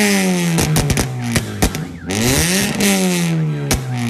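Hyundai Elantra engine and exhaust revved twice while the car is stationary: each time the pitch climbs, then falls back slowly to idle. There is a hiss on each climb and a few sharp cracks as the revs drop.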